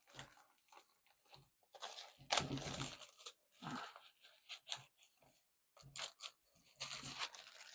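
Protective packaging being torn open and handled by hand: irregular bursts of tearing and crunching with short pauses, loudest about two and a half seconds in and again near the end.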